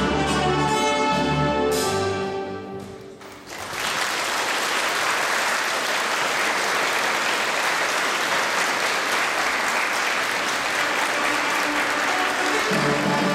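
Recorded orchestral polonaise music with strings ends about three seconds in, followed by steady audience applause; the music starts up again near the end.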